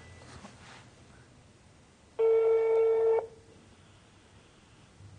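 Telephone ringback tone heard through a mobile phone held to the ear: one steady beep about a second long, starting about two seconds in. It is the sign that an outgoing call is ringing and not yet answered.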